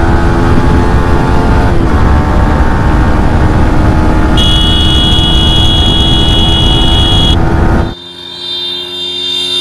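Yamaha R15 V4's single-cylinder engine running steadily at speed from the rider's seat, under heavy wind rush on the microphone. About four seconds in, a steady high whine joins for about three seconds. Near the end the sound drops sharply to a motorcycle engine running steadily in the distance, growing a little louder as it approaches.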